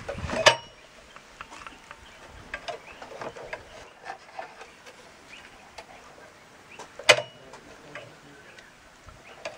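Beehive frame being wired by hand on a metal jig: small clicks and taps of wire and wood throughout, with two sharp knocks that ring briefly, about half a second in and about seven seconds in.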